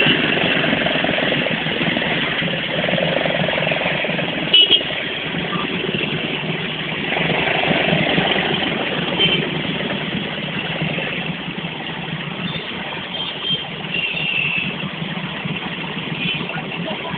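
Dense motorbike and scooter traffic in a jam: many small engines idling and running together in a steady drone, with short high tones now and then and a brief knock about four and a half seconds in.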